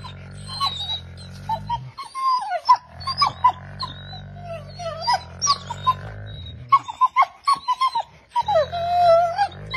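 Wolf pup screaming and whining in a rapid string of short, high, wavering yelps, with one longer drawn-out wail near the end. It is a pup's dramatic protest to make a bigger wolf back off from something she wants to keep.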